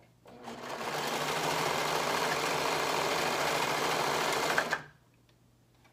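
Brother serger (overlock machine) stitching fabric: it speeds up over about half a second, runs steadily at full speed for about four seconds, then stops. It stands on an anti-vibration mat on a table that is vibrating a lot.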